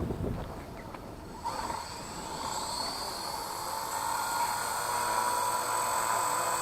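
RC helicopter's brushless main motor and rotor blades starting up about a second and a half in, whining up in pitch and then running at a steady high whine as the rotor comes up to idle-up head speed before lift-off.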